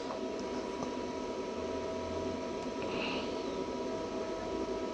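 Steady hiss with a faint, constant electrical hum.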